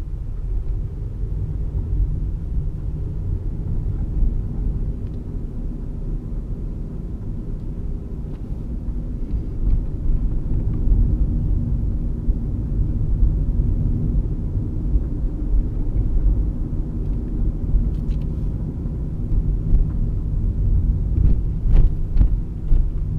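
Car cabin noise at low speed: a steady low rumble of engine and tyres on the road, with a few faint knocks near the end.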